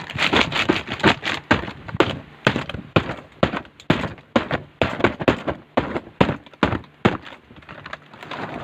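Toy cars clattering and knocking against each other and the play set as they are put away: many sharp, irregular knocks that die down about seven seconds in.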